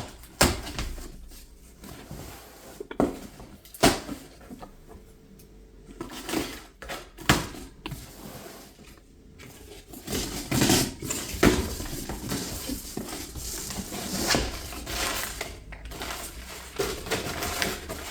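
Household goods being taken out of a delivery and handled: irregular knocks and clatter of items set down, with rustling of packaging between them.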